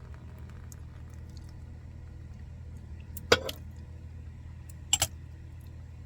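Two short, sharp clinks of teaware, about a second and a half apart, over a steady low hum.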